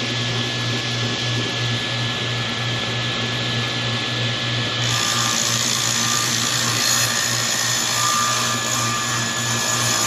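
Table saw running at full speed with a steady motor hum. From about halfway, the blade cuts into a 15 mm MDF panel, adding a brighter, hissing cutting noise.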